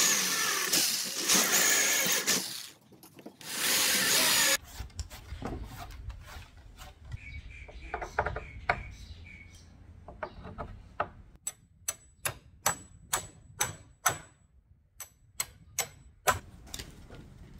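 Corded electric drill boring through a reclaimed hardwood brace for about two and a half seconds, then again briefly near four seconds in. Later a hammer taps steel bolts down through the drilled holes: a run of sharp strikes, about three a second, with a light metallic ring.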